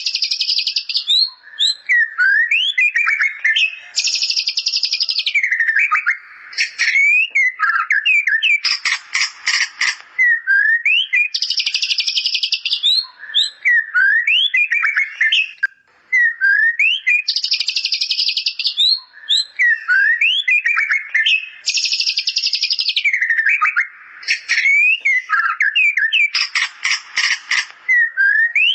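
White-rumped shama singing a song filled with bar-winged prinia (ciblek) phrases. It gives quick rising whistled notes, blocks of buzzy high trills, and twice a rapid rattling run.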